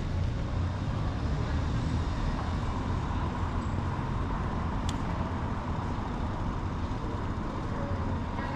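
Steady low rumble of city traffic, with no sudden events besides a faint click about five seconds in.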